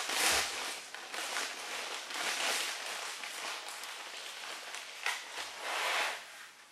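Wet clay being worked by hand and tool on a thrown pitcher: irregular scraping and rubbing sounds, with a soft thump at the start and stronger strokes about five and six seconds in.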